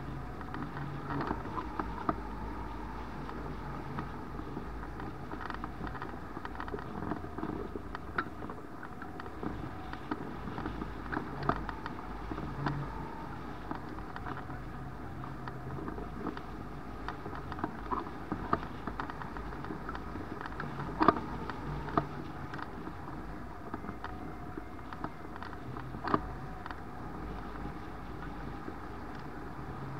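Steady rush of airflow over a camera mounted on a rigid-wing hang glider in soaring flight, with scattered sharp clicks and knocks, the loudest about 21 seconds in.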